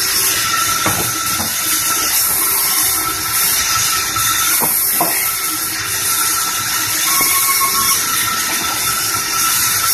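Large vertical band saw ripping a slab of medang wood: a steady, loud hiss of the blade cutting through the timber, with a few short knocks about a second in and again around five seconds in.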